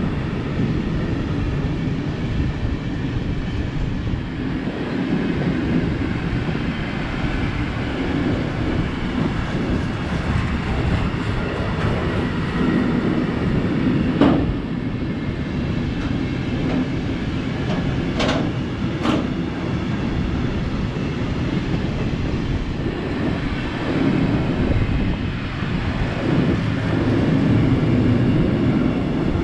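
Freight train of covered hopper wagons rolling past, a steady rumble of wheels on the rails, with three short sharp sounds from the running gear in the second half.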